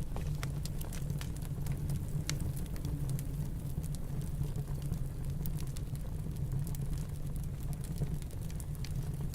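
Wood fire crackling, with sharp irregular pops scattered throughout, over a steady low rumble of snowstorm wind.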